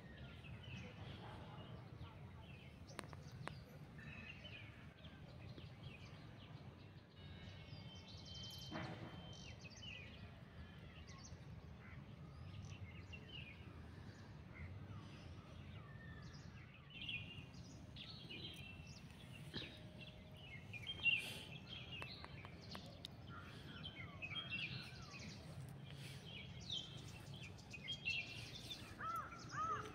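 Birds chirping and calling in short, scattered notes, faint at first and busier in the second half, over a steady low background noise. One sharp tap about two-thirds of the way in is the loudest moment.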